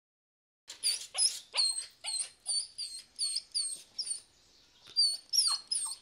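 Small puppy giving a run of short, high-pitched yips, about two a second, starting about a second in, with a short pause shortly after the middle.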